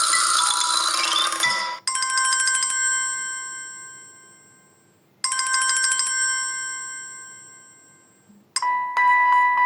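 Samsung Galaxy Feel built-in phone tones: a busy melodic tone ends about two seconds in, then a bell-like chime sounds twice, each ringing out and fading away over about three seconds. Another tone starts near the end.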